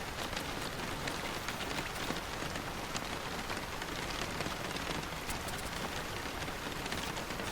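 Steady rain falling on a surface, a dense even hiss with many individual drops ticking through it.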